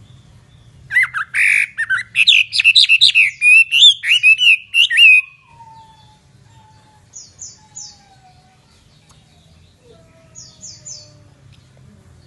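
Chinese hwamei singing a loud burst of fast, varied, sliding whistled notes for about four seconds. Later come two short groups of three faint high notes and a few faint falling whistles.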